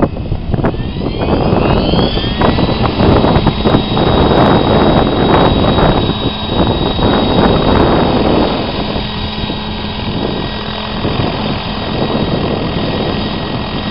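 Radio-controlled helicopter spooling up on the ground under a heavy-lift load of added house bricks: a motor and rotor whine rises in pitch over the first couple of seconds, then holds steady over a loud rush of rotor air. It eases a little in the second half.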